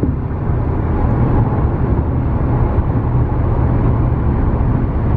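Car driving at road speed, heard from inside the cabin: a loud, steady low rumble of road and wind noise.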